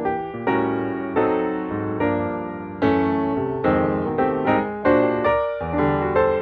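Background piano music, with notes and chords struck one after another and dying away.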